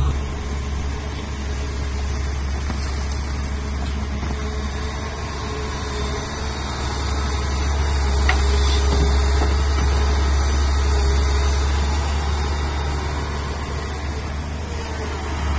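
Hitachi Zaxis 470H hydraulic excavator's diesel engine running steadily as it works, a deep even hum that grows a little louder about eight seconds in.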